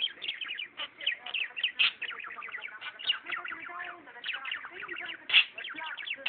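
Budgerigar chattering: a continuous warble of rapid chirps, clicks and short squeaks, with one sharper, louder call about five seconds in.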